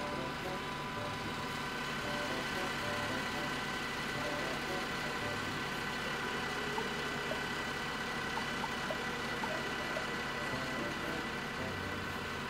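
Cesspit-emptying vacuum truck running steadily, its engine and suction pump making a continuous drone with a steady whine on top.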